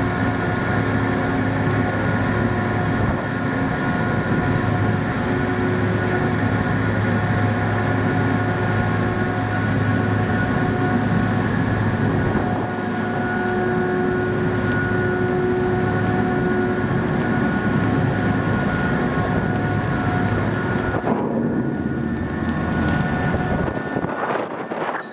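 Steady drone of a car ferry's engines and machinery heard on board: a strong low hum with several steady tones above it. The sound changes abruptly near the end, the drone giving way to a thinner, different noise.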